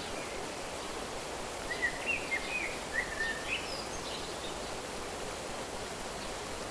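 Outdoor nature ambience: a steady, even hiss of natural background noise, with a bird giving a quick run of short chirps about two seconds in.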